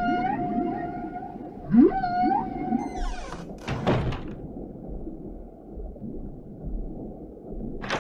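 Whale calls: two long moans, each sweeping steeply up and then holding a steady tone, the second coming about two seconds in, over a steady low rush of noise. A short burst of rushing noise follows around three to four seconds in.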